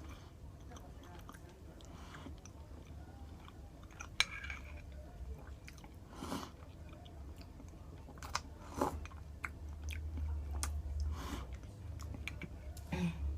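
A person chewing food close to the microphone, with scattered small wet clicks and crunches, over a steady low hum.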